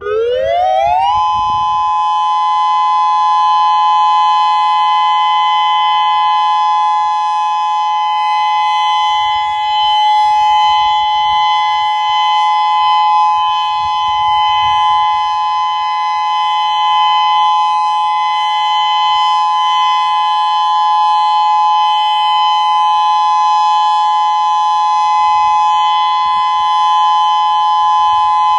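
Federal Signal Modulator 6024 electronic outdoor warning siren sounding a steady alert tone for a test. It sweeps up in pitch over about the first second, then holds a loud, steady two-note tone.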